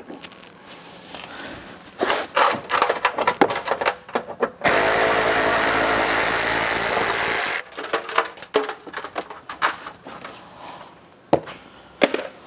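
A power tool runs steadily for about three seconds near the middle, starting and stopping abruptly. Before and after it come bursts of clattering from tools and small parts being handled.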